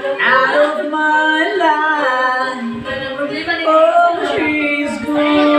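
A man singing an English love ballad karaoke-style into a microphone over a backing track, holding long drawn-out notes.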